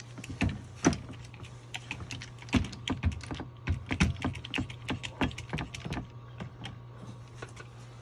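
Irregular light metal clicks and taps as the head of a handheld hydraulic crimping tool is shifted and set around an adapter fitting on a drain-cleaning cable, over a low steady hum.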